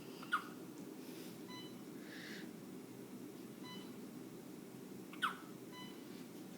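Newborn baby hiccuping twice, about five seconds apart, each hiccup a short sharp squeak that drops in pitch. A faint short beep repeats about every two seconds over a steady low hum.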